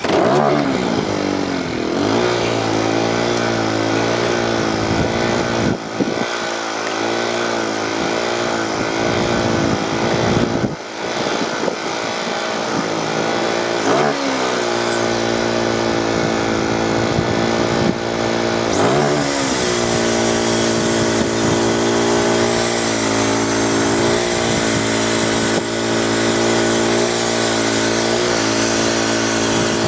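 Angle grinder grinding down flux-core welds on a steel square-tubing fence frame. The motor's steady whine sags in pitch each time the disc bites into the metal, then recovers.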